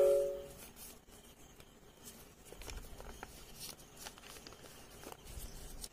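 A square sheet of paper being folded and creased by hand: faint, scattered rustles and crinkles. A ringing tone from just before fades out in the first half second.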